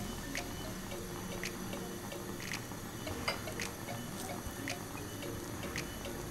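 Silicone spatula stirring flour in a plastic mixing bowl: soft scraping and mixing, with light clicks about once a second.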